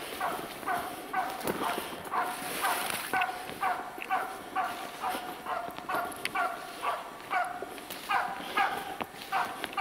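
Karelian hunting laika barking steadily, short barks in a fast, even rhythm of about three a second: the bark of a dog holding a black grouse treed.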